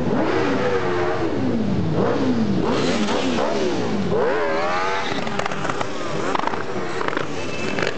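Several motorcycles riding past one after another, their engines revving up and down in overlapping rising and falling pitches.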